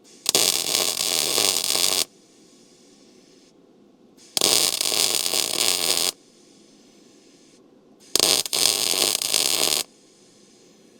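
Welding arc crackling in three short bursts of a second and a half or more each, with pauses between, as a gap in a steel truck frame gusset is filled with weld.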